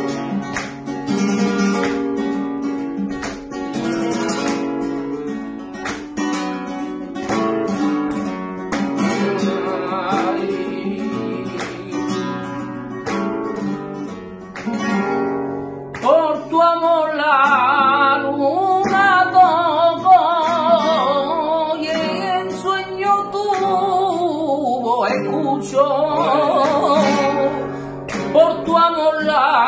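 Solo flamenco guitar playing the introduction to a fandango de Huelva. About halfway through, a male flamenco singer comes in over the guitar with a wavering, melismatic line.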